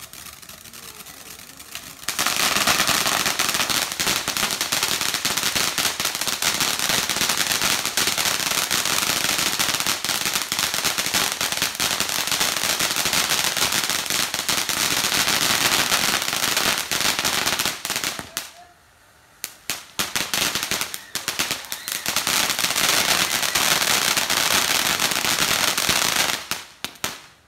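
Crackling ground fountain firework: a dense, rapid, continuous popping crackle that builds up about two seconds in. It breaks off briefly about two-thirds of the way through, restarts in scattered pops and then full crackle, and stops abruptly near the end.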